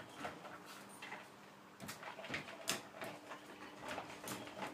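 Hard plastic Nina Ottosson Treat Maze toy tipping, rolling and knocking on a tiled floor as a dog pushes it around, giving irregular clicks and clatters with treats rattling inside. A faint steady hum runs underneath.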